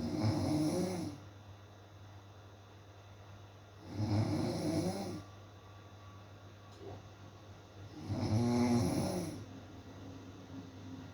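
A person snoring, three snores about four seconds apart, each lasting about a second.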